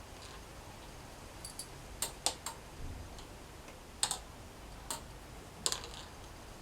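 Leather grip lacing on a bow being worked and pulled tight by hand: a scatter of small, sharp clicks and ticks at irregular intervals, in little clusters.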